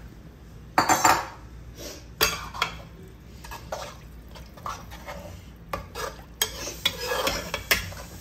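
Stainless-steel slotted spoon stirring rice in tomato gravy and water inside a pressure cooker, clinking and scraping against the pot's metal sides every second or so, with the loudest knock about a second in.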